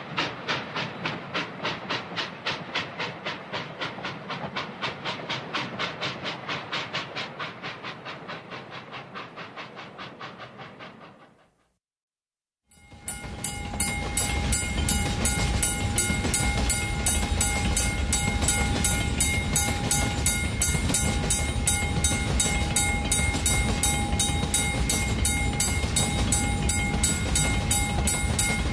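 Steam locomotive chuffing in a fast, even beat that fades away about eleven seconds in. After a short silence, a train runs steadily with a low rumble, a held tone like a whistle over it, and a regular clicking.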